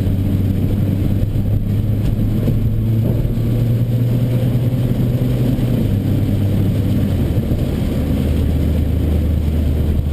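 Nissan GT-R engine running steadily at low revs, a low drone that drops a little in pitch about six seconds in.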